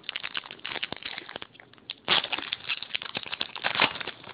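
Foil wrapper of a Pokémon trading-card booster pack being torn open and crinkled by hand: a rapid run of crackles, with louder bursts about two seconds in and near the end.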